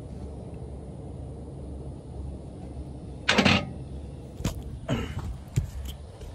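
Steel hand tools clanking and knocking on a bush hog mower's frame as its rear wheel is adjusted with wrenches: one louder clank about three seconds in, then a few lighter knocks, over a steady low rumble.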